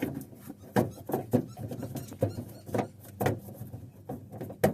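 Irregular hard plastic clicks and knocks, about seven, the last one the loudest: the headlight bulb's rear dust cover being handled and fitted back onto the headlight housing.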